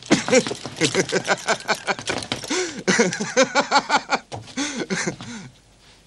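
A man laughing heartily: a long, rapid run of ha-ha bursts that dies away near the end.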